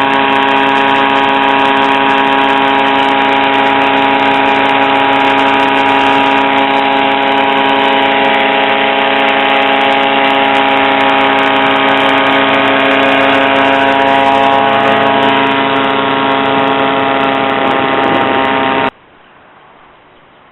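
The engine of an HM-1000 Balerit ultralight aircraft running loudly at a steady speed, with a buzzing, chainsaw-like tone. It cuts off suddenly near the end, leaving only a faint hiss.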